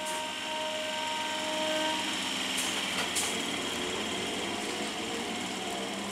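Electric multiple unit train moving off, its electric traction motors whining at a steady pitch that then climbs through the second half as it gathers speed. Two sharp clacks come about two and a half and three seconds in.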